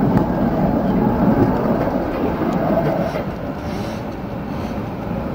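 Tram passing close by: an even rumble of wheels on rails that slowly fades as it moves away.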